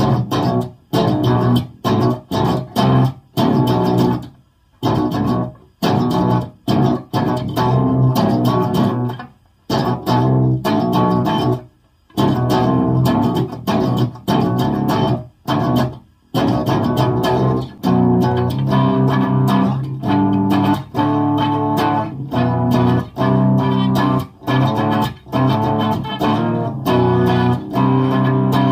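Electric guitar on a clean amp setting playing a rhythm riff. Short, choppy chords are cut off by brief stops, and about two-thirds of the way through it turns into steadier, longer notes.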